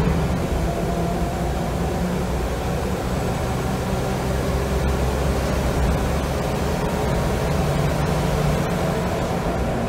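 Scania L94UB single-decker bus heard from inside the saloon while under way: the 9-litre five-cylinder diesel runs steadily with a low drone, mixed with road and body noise. A faint whine from the ZF automatic gearbox rises slightly in the second half.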